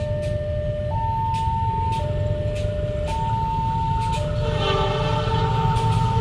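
Railway level-crossing warning alarm sounding a two-tone low–high signal that alternates about once a second, over a steady low rumble. About four seconds in, a brief chord of several horn-like tones joins it.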